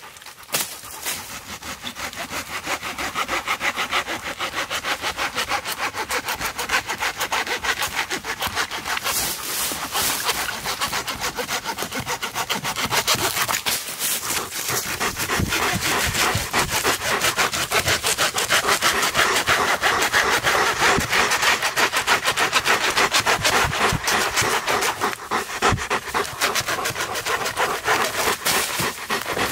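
Folding hand saw cutting through a dead, dry log, with fast, steady back-and-forth strokes of the blade rasping through the wood.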